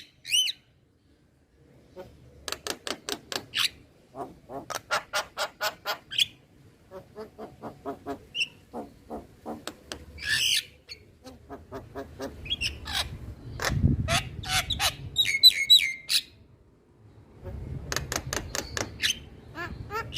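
Male Javan myna (jalak kebo) singing: quick runs of harsh clicking notes, about eight a second, broken by squawks and a few whistled notes.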